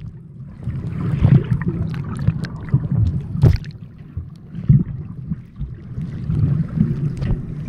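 Muffled underwater sound picked up by a submerged camera: an uneven low rumble of moving water that swells and fades, with scattered sharp clicks.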